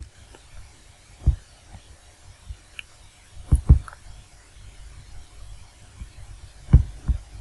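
Computer mouse clicks, soft and dull, about five of them, two coming as quick pairs.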